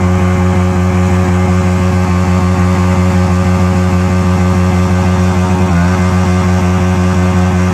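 Yamaha MT-15's single-cylinder engine held at steady high revs during a rear-tyre burnout, with a brief dip about six seconds in.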